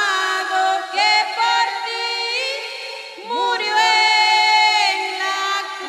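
Two women singing a Spanish evangelical hymn together, their sung lines bending and holding in pitch, with a short breath pause about three seconds in.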